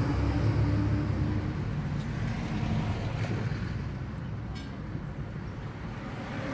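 A motor vehicle engine running close by, its low hum loudest at first and fading over the following seconds.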